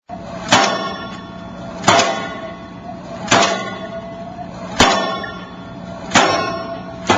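Pile driver's hammer striking a steel pile: a ringing metallic clang about every second and a half, five blows in a row, over a steady low machine hum.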